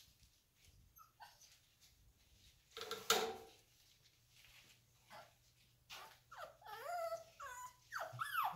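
Seven-week-old American Bully puppies whining and yelping. There are a few faint clicks and one loud short sound about three seconds in, then a run of high, arching whines packed close together in the last few seconds.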